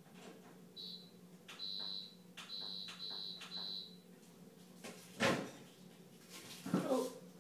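Dishwasher's electronic beeper sounding a single high tone: one short beep, then four half-second beeps in a row. A sharp knock and a short clatter follow near the end, over a steady low hum.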